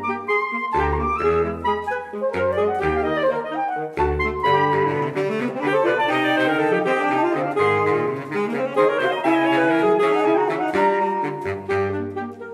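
A saxophone quartet of soprano, alto, tenor and baritone saxophones playing together in busy, interlocking lines. The baritone plays short, detached low notes for the first few seconds and again near the end. In between, the upper saxophones carry longer, held notes.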